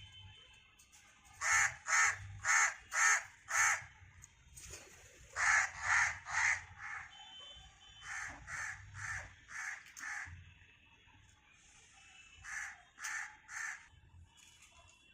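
Harsh bird calls in repeated runs of three to five, about three calls a second, with pauses of a second or two between runs.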